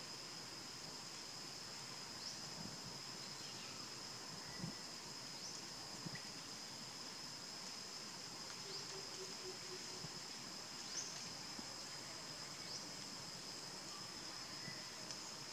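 Steady high-pitched drone of insects, with short rising chirps scattered through it and a few soft knocks.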